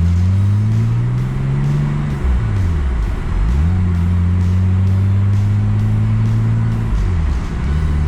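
Car engine accelerating through the gears: its pitch rises, falls sharply about two and a half seconds in as it shifts up, holds steady, then falls again near the end with another upshift.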